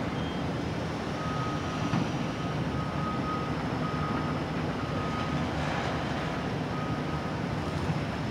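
Demolition excavator's diesel engine running with a steady low rumble, while a backup alarm beeps about once a second.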